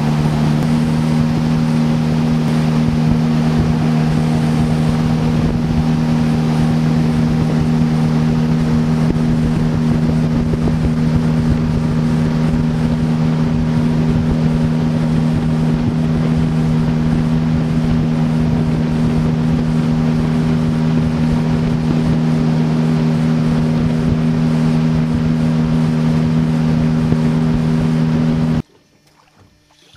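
Outboard motor of a small aluminium boat running at steady cruising speed, a constant drone heard from on board, with wind rushing over the microphone. It cuts off abruptly near the end.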